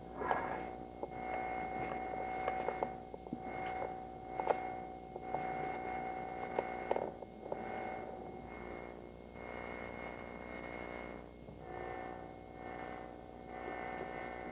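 Background music: a sustained synthesizer drone that swells and dips about once a second, with a few sharp clicks in the first seven seconds.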